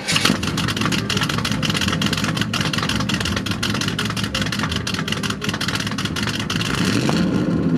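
Car engine running, its exhaust blowing into a disposable glove taped over the tailpipe tip and inflating it. The engine speed rises a little near the end.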